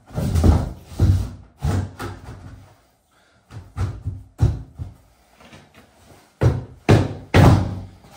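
A shower tray being shifted on its timber frame and bumped into place: a series of dull knocks and thuds in three groups, the loudest near the start and near the end.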